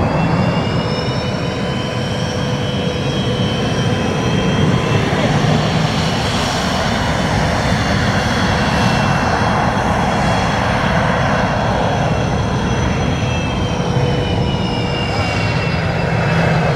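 Sukhoi Su-27's twin AL-31F turbofan engines running as the jet taxis past: a steady, loud jet rumble with high turbine whines that rise over the first few seconds and fall away near the end.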